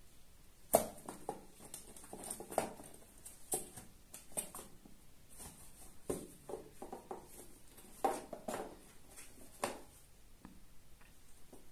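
A cat pawing and clawing at a cardboard box toy with holes in its lid: irregular taps, knocks and scratching on the cardboard, the sharpest knock about a second in.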